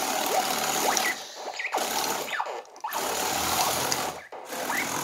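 Four LEGO Power Functions medium motors and their gearing whirring as the tank drives and turns on its tracks, cutting out briefly about three times and starting again. Short rising and falling whines come as the motors spin up and down.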